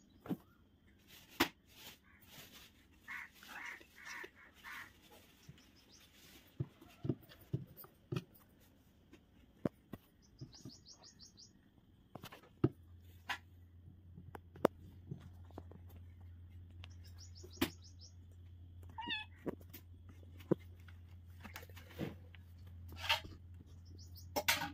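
Kitten mewing in a few short high calls, among scattered light knocks and taps. A low steady hum comes in about halfway through.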